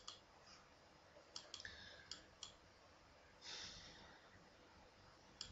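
Computer mouse clicking, several short sharp clicks scattered over near silence, with a short breath about three and a half seconds in.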